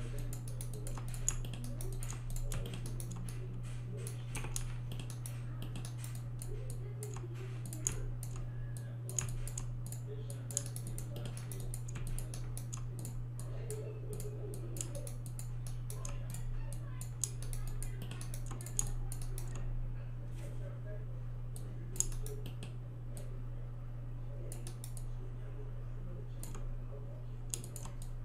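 Computer keyboard keystrokes and mouse clicks, irregular and scattered, over a steady low hum.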